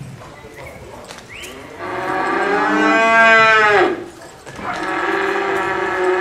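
Cattle mooing: a cow gives a long, loud bawl, then after a short pause a second long one, each dropping in pitch as it ends.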